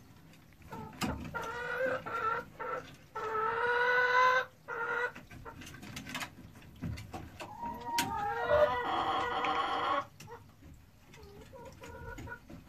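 Domestic hens clucking and calling in two bouts of drawn-out calls. The loudest call comes about four seconds in, and in the second bout, from about eight to ten seconds, the pitch slides up and down.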